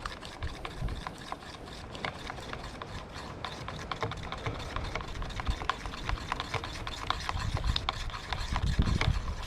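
Epoxy resin and hardener being stirred with a stick in a container: a steady run of irregular scrapes and small clicks as the stick works around the inside.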